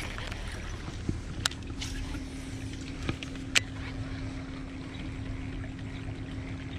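Steady hum of a bass boat's electric trolling motor, starting about a second in, with a few sharp clicks from a baitcasting rod and reel being cast and handled.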